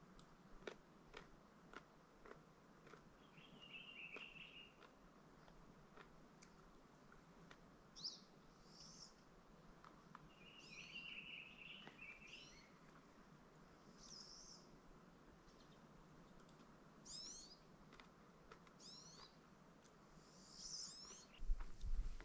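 Quiet forest ambience with small birds giving scattered short, high downslurred calls and two buzzy trills. Faint clicks of an eating utensil come now and then. Just before the end there is a louder knock and rustle of things handled on a wooden table.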